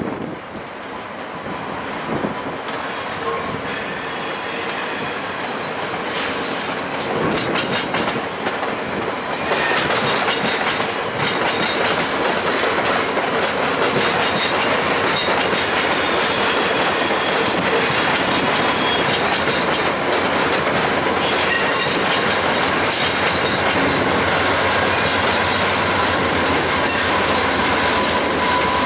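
VIA Rail passenger train backing slowly through station trackwork: the stainless-steel HEP-II coaches' wheels click over rail joints and switches with a high-pitched wheel squeal, getting louder from about eight seconds in as the cars roll close by. The P42 diesel locomotive pushing at the rear comes by near the end.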